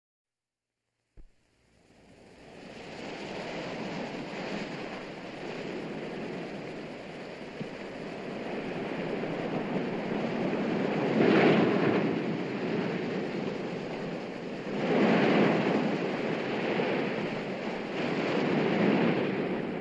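Ocean surf breaking against rocks, fading in after a second of silence. The wash swells into louder wave crashes three times: about halfway through, about three-quarters of the way through, and near the end.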